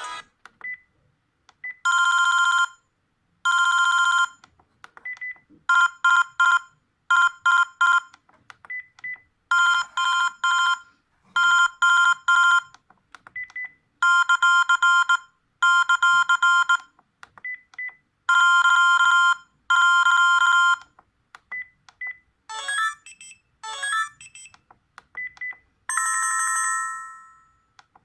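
Sharp V703SH mobile phone playing a run of short electronic ring tones one after another, each about a second long, many of them rapidly pulsing. Short high beeps sound in the gaps between them. Near the end come two sweeping tones, then one tone that fades away.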